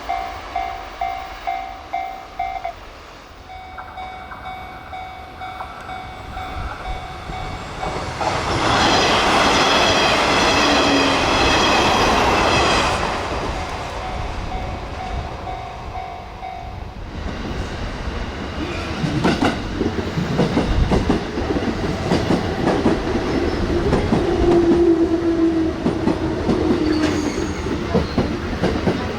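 Japanese level-crossing warning bell ringing in quick, evenly repeated dings. About eight seconds in, a loud horn-like tone lasts some four seconds. From about halfway on, a train passes at speed with its wheels clattering over the rail joints.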